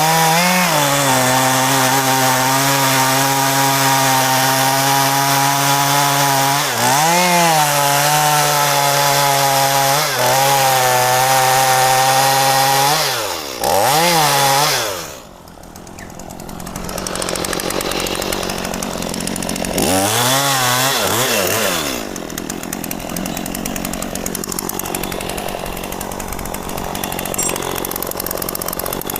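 Two-stroke chainsaw running at full throttle cutting mahogany, its pitch dipping and recovering a few times under load. About halfway through it drops off the throttle, revs briefly once more, then settles to idle.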